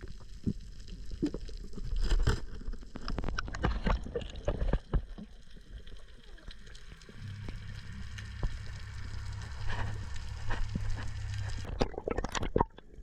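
Muffled underwater sound from a diver's camera: gurgling and sloshing water with scattered clicks, and a low steady hum from about seven seconds in until near the end.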